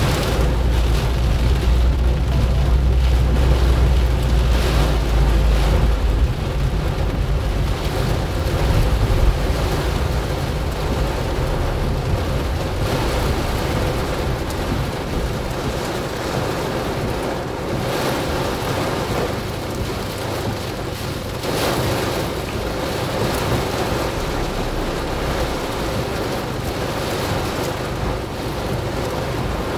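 Heavy rain drumming on a car's windshield and roof, heard from inside the moving car. A deep rumble is strong for the first six seconds, and the rain swells in brief louder gusts a few times.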